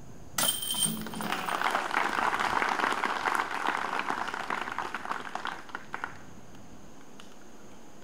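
A disc golf disc hits the metal chains of the basket with a sudden chiming jingle, followed at once by spectators clapping for about five seconds before the applause dies away.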